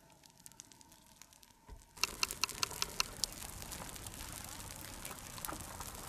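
Dry grass and brush burning in a wildfire, crackling and popping. It starts suddenly about two seconds in with a quick run of sharp pops, then settles into a steady crackle and hiss.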